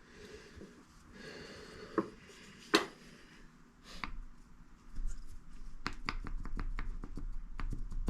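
Hands handling small parts and paper on a workbench: two sharp clicks about two and three seconds in, then from about five seconds a run of quick small clicks and rustling.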